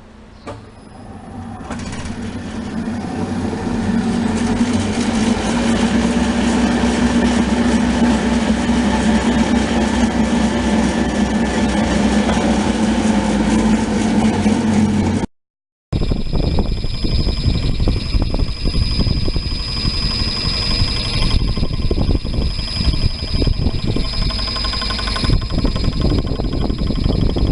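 Cylinder-head surfacing machine running as it mills a V6 marine engine's cylinder head; its motor winds up over the first few seconds to a steady hum. After a brief dropout about halfway through, it continues with a steady high whine and dense rapid ticking.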